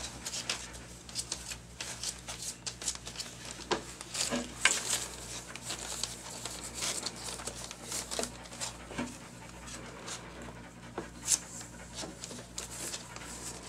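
Two-week-old puppies moving about on a plywood floor and newspaper: a busy run of small scratches, scrapes and paper rustles from their paws, with the occasional small puppy noise.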